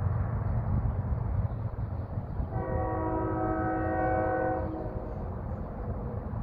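Approaching diesel freight train rumbling low and steady; about two and a half seconds in, the lead locomotive, a Union Pacific GE C45ACCTE, sounds its multi-chime horn as one chord held for about two seconds.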